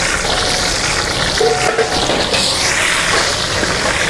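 Marinated chicken leg pieces deep-frying in a large pot of hot oil, which bubbles and sizzles steadily.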